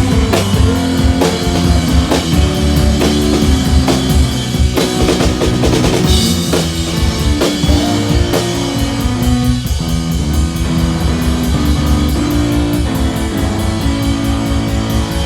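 Live rock band playing an instrumental stretch: a drum kit keeps a steady beat under sustained keyboard chords.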